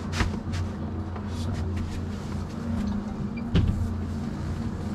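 A steady low engine hum runs throughout, with a few light knocks and one louder thump about three and a half seconds in.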